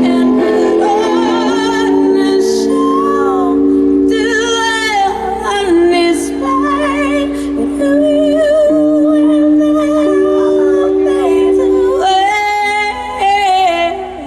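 Live rock band music: a lead melody with strong vibrato over sustained chords, fading down near the end.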